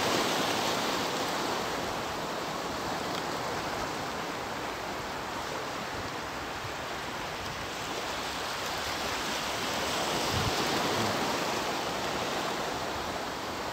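Steady rushing noise of wind and choppy sea water, swelling a little about three-quarters of the way through.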